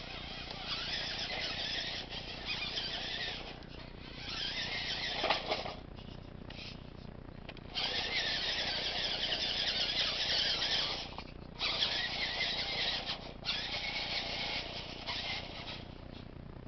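RC monster truck's motor and gears whining in repeated bursts of throttle, about five runs of one to three seconds each with short pauses between.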